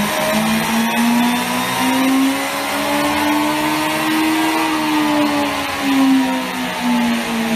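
Benda LFC 700's inline-four engine running hard on a rolling-road dyno through an aftermarket valved exhaust. Its pitch climbs slowly to a peak about halfway through, then eases back down as the throttle is backed off slightly.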